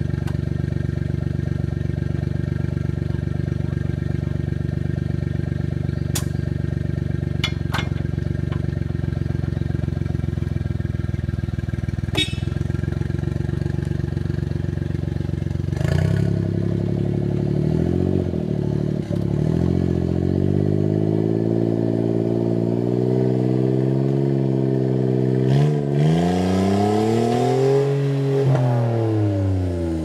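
Suzuki Jimny JA11's engine idling steadily, with a few sharp clicks over it, then revving up and down repeatedly from about halfway, the pitch rising and falling several times and sweeping up and back down once more near the end.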